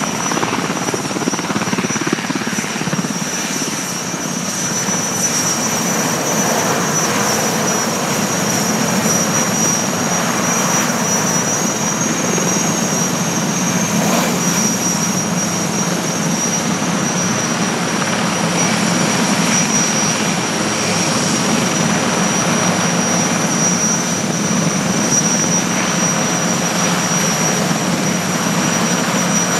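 Military helicopter running steadily: turbine engine whine held at one high pitch over continuous rotor noise.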